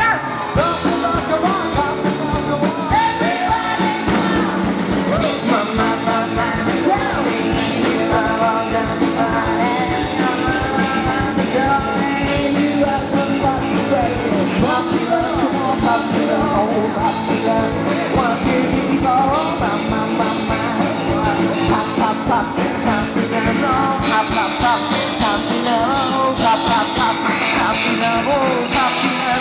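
Live band playing a rock-pop song at full volume, a lead vocal singing over acoustic guitars, bass and a drum kit keeping a steady beat.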